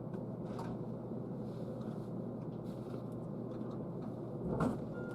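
Passenger train running, heard inside the carriage: a steady low rumble with faint ticks, and one louder knock about four and a half seconds in.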